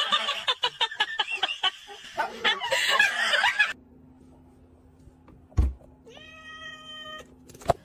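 Busy, loud outdoor sound with clicks and voices for the first three and a half seconds. Then it goes quiet, a thump sounds, and a cat gives one long, even meow lasting about a second.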